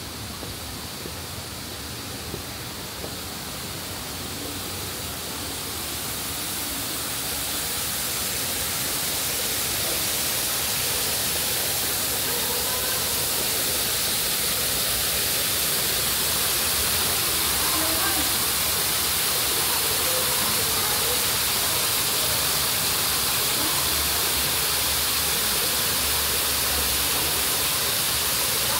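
Steady rushing hiss that grows louder over the first ten seconds and then holds, with faint voices in the background.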